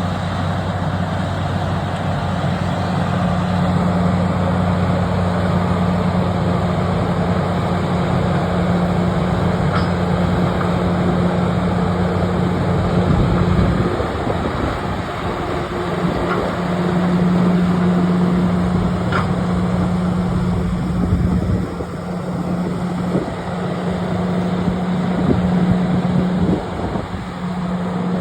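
Bulldozer's diesel engine running under load while dragging logs: a steady low drone that changes in pitch and level a couple of times as the machine works, with a few faint clicks.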